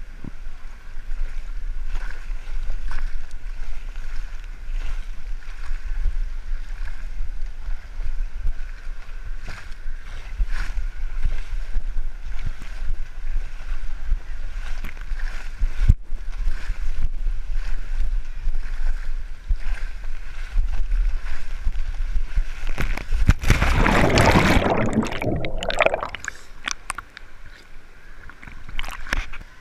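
Rider sliding feet-first down a waterslide chute: running water and the body rubbing and knocking along the slide, with a steady low rumble. About three quarters of the way through comes a loud splash as the rider drops into the pool, followed by quieter water sloshing.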